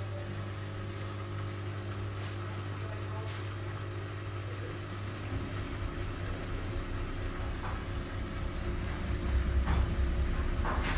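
Miele Supertronic front-loading washing machine with its motor and drum speeding up from the wash tumble into a spin. A steady hum gives way about halfway through to a louder, rougher rumble that grows again near the end.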